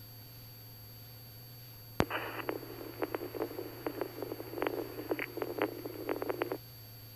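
Aircraft radio over a steady low hum: a key click about two seconds in opens a burst of crackly, garbled transmission with scattered clicks, which cuts off abruptly after about four and a half seconds.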